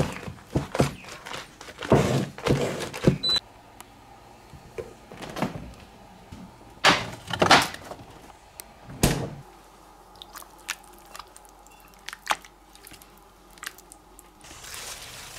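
Kitchen handling sounds as a glass bowl of marinating tuna is moved, covered and set into a refrigerator: scattered knocks and clinks, with a few louder thunks.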